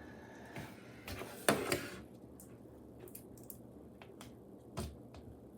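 Hands working tape and plastic wrapping off a small cube's packaging: a burst of crinkling and tearing about one and a half seconds in, then small clicks and taps, with a duller knock near the end.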